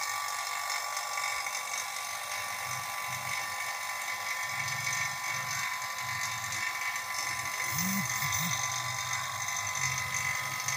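Electric rotary-vane vacuum pump running steadily, pulling a vacuum on an air conditioner's copper refrigerant lines through a manifold gauge set to evacuate them before the refrigerant is recharged.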